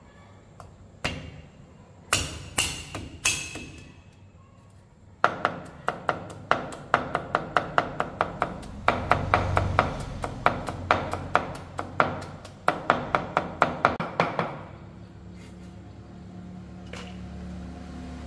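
A cleaver chopping on a wooden cutting board, most likely mincing pork for sausage: a few single chops, then a fast run of chops at about three to four a second. Near the end the chopping stops and a low steady hum is left.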